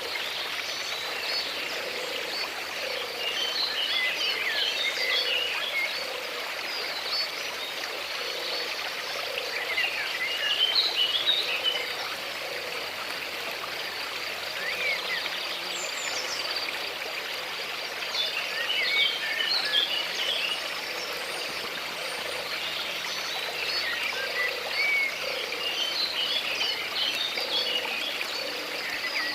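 Water flowing steadily, with birds chirping in short bursts every several seconds and frogs croaking in a low, evenly repeated call throughout.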